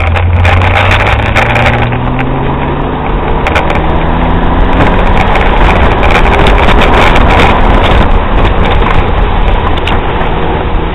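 1996 BMW E36 328i's 2.8-litre inline-six heard from inside the cabin, climbing steadily in pitch under acceleration over the first five seconds or so. A loud rushing hiss of tyres on the soaked track then dominates.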